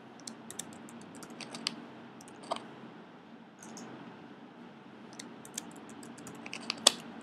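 Keystrokes on a computer keyboard in short scattered runs as words are typed, with mouse clicks, and one louder click near the end.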